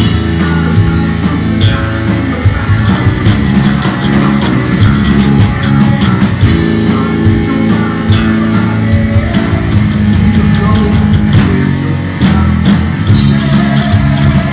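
Heavy metal band playing live and loud: electric guitar and drum kit, with the guitarist singing lead into the microphone.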